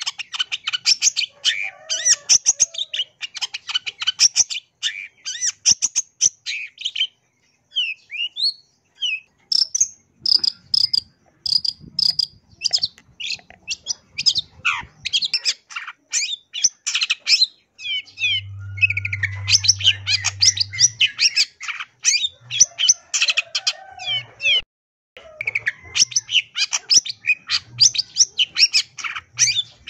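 Long-tailed shrike singing a fast, continuous chattering song full of mimicked phrases: rapid high chirps and trills, with a short break about eight seconds in and a brief one near the end. A low hum sounds for about three seconds just past the middle.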